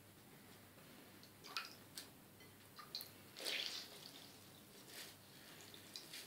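Faint splashes and drips of water as a slice of white bread is dipped in a bowl of water and squeezed out between the hands, the water running back into the bowl. A few short, soft sounds, the largest about halfway through.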